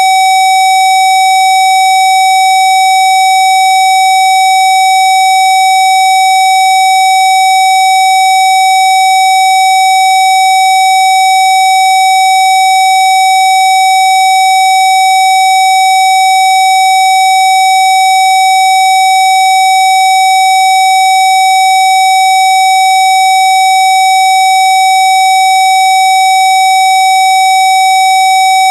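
A steady, unbroken electronic test tone at about 760 Hz, played as a Rife 'healing frequency', with fainter higher overtones above it.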